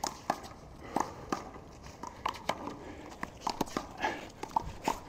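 Irregular sharp smacks of a rubber handball against hands and the wall, mixed with players' footsteps and a few short squeaks on the court.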